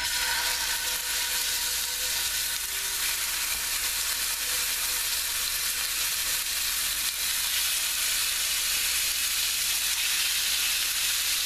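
Pork chops sizzling as they sear in a hot cast iron pan. The sizzle starts suddenly as the first chop goes in and then holds steady.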